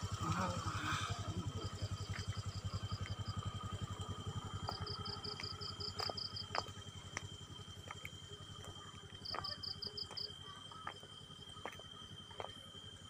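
A small engine runs steadily with a fast low pulse that slowly fades. Over it, night insects keep up a steady high trill, two short bursts of rapid chirping come in about five and nine seconds in, and scattered light clicks sound throughout.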